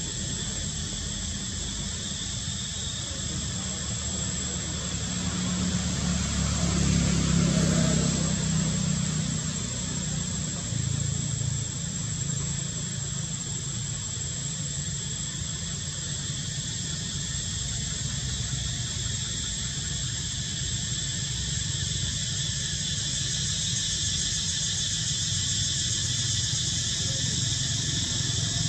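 Outdoor ambience: a steady high-pitched chirring of insects, with a low rumble of a passing vehicle that swells and fades about six to nine seconds in.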